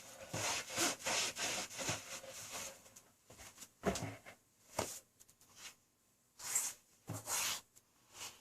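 Toothbrush scrubbing a sneaker with a bleach-and-water cleaning solution: a run of quick rubbing strokes, then a couple of sharp knocks, a short pause, and a few more strokes near the end.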